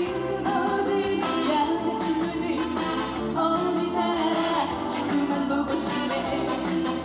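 A woman singing a trot song live through the PA over amplified accompaniment.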